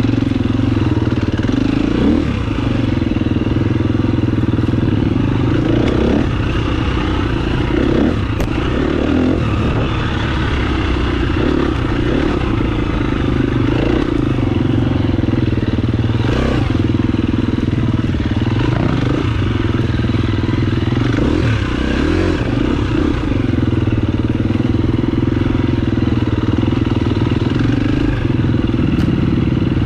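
Dirt bike engine running steadily while riding, with short rises and falls in engine pitch several times as the throttle is worked.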